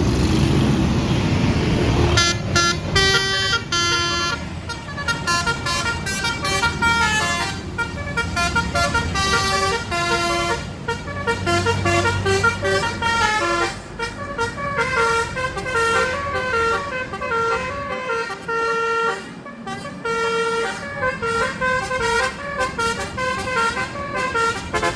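Basuri telolet bus horn playing a melody: a quick run of stepped, multi-tone horn notes in repeating phrases. A loud rush of noise comes first, in about the first two seconds.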